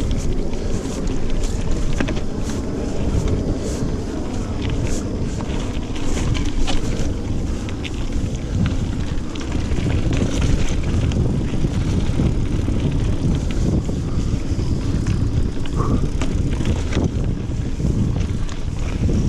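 Wind buffeting the microphone as a single-speed mountain bike rolls fast down rocky dirt singletrack, with frequent short clicks and rattles from the bike jolting over rocks and roots.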